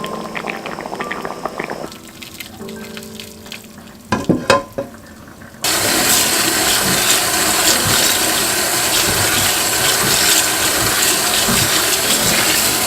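Water rushing steadily into a kitchen sink, starting abruptly about six seconds in, over quieter background music.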